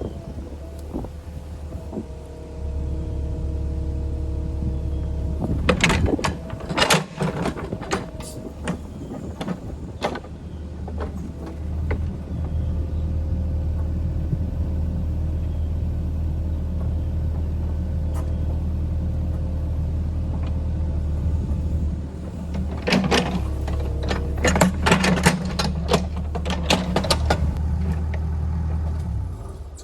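An engine running steadily with a low drone, broken twice by spells of rapid sharp knocks and clatter; the drone cuts off near the end.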